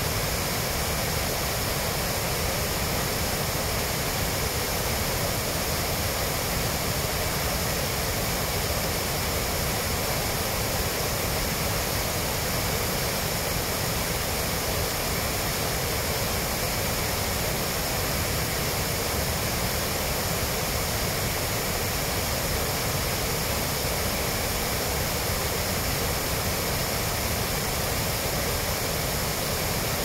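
Waterfall in heavy, muddy flow pouring over rock ledges: a steady, unbroken rush of water.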